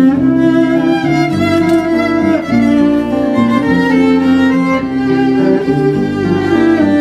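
Violin, cello and double bass playing slow, held bowed notes, the pitches shifting every second or so.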